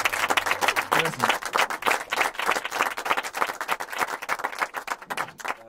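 Audience applauding: dense clapping that thins out and fades near the end.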